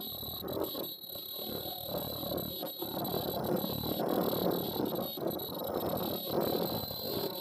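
Tie-on medical mask welding machine running: a steady, dense mechanical clatter from its feeder and conveyor, with a thin high whine held throughout.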